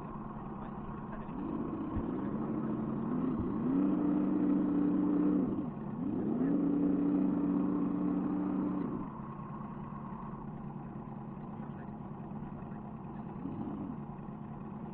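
A 1:10 scale RC crawler's electric motor and gearbox whining under throttle. The pitch rises, holds and falls off in three bursts of a couple of seconds each, with a short fourth one near the end.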